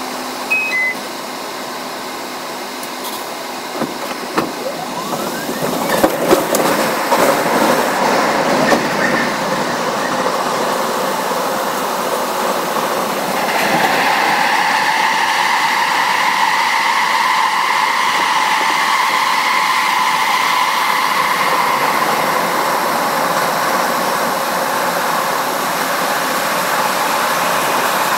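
Subway train (R62A cars) running through a tunnel: wheels rumbling and clicking on the rails as it picks up speed, with two short beeps near the start. From about halfway there is a steady high-pitched squeal.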